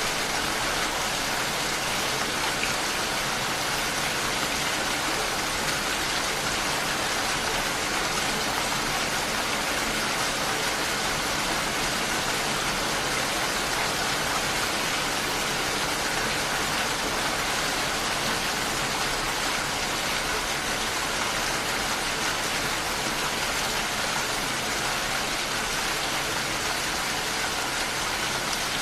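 Steady rain falling, an even, unbroken hiss of rain on a surface.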